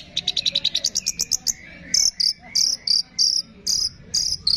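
Bird-song training recording of high-pitched calls: a fast ticking trill for about a second and a half, then a string of loud, sharp chirps about two a second.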